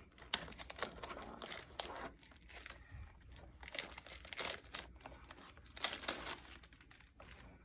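Crinkling and tearing of the packaging on a Bowman baseball-card booster box as it is opened, in crackly bursts with the densest about a second in, around four seconds in and around six seconds in.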